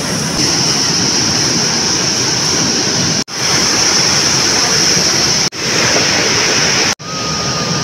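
River water rushing in a steady, even roar, with a steady high-pitched buzz above it. The sound cuts out briefly three times, in the second half.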